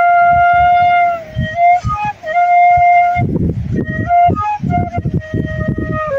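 Bansuri (bamboo transverse flute) playing a slow melody of long held notes with short slides between them, over a low, uneven rumble.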